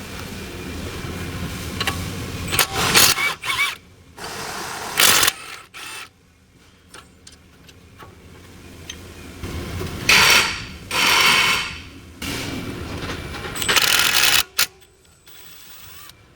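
Mechanical tool noise from work on the car's front brakes: several short, rattling bursts with quiet gaps between, the longest about ten seconds in.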